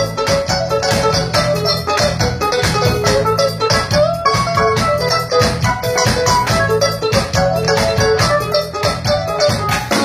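Live instrumental music: an electronic keyboard playing an organ-sounding lead melody over a bassline and a steady drum beat.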